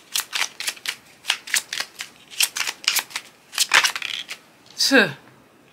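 A deck of tarot cards being shuffled by hand: a quick run of crisp card clicks and slaps, a few a second. Near the end comes a short, louder sound that slides down in pitch.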